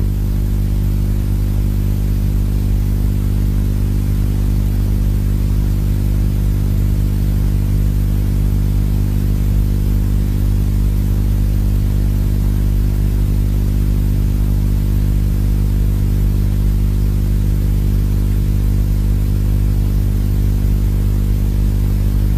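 A steady low drone of several held low tones, with an even hiss above it, unchanging throughout.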